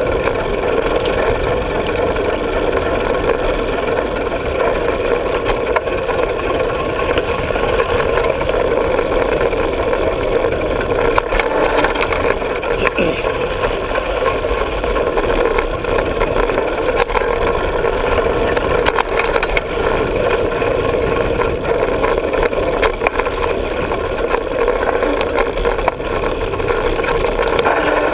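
Diamondback hardtail 29er mountain bike riding fast down a dirt trail: a steady rush of tyre and ride noise, broken by frequent small rattles and knocks as the bike jolts over the rough ground.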